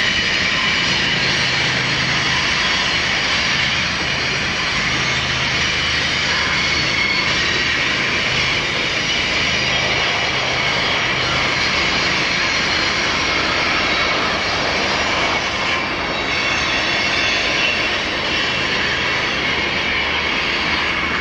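Canadian Pacific diesel-electric locomotives pulling a loaded grain train up a mountain grade, a steady, loud engine thrumming under load.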